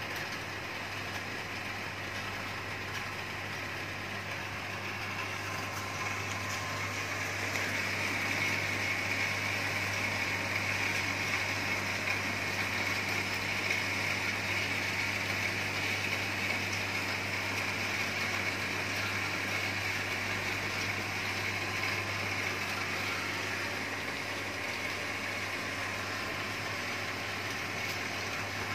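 Small electric pressure booster pump running steadily: a constant low mains-motor hum with a hiss over it, getting a little louder several seconds in.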